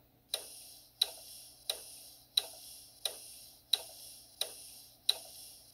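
Windshield-wiper sound effect from the DCC sound decoder of an HO-scale Bachmann ALC-42 locomotive, played through its small onboard speaker. Each wiper stroke is a sharp click followed by a short fading swish, repeating steadily about one and a half times a second.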